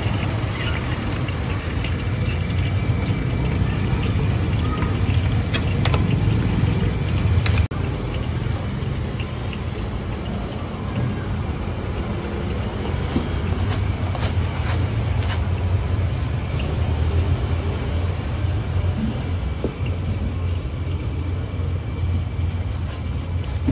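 Roadside food stall ambience: a steady low rumble with a hiss over it, and a few scattered clicks and knocks of utensils.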